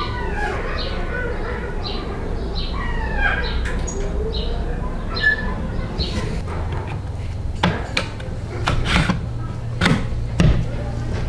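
Several sharp clicks and knocks from handling a scale-model truck chassis and its wheels, bunched in the last few seconds. They sit over a steady low hum and short high chirps repeating about twice a second.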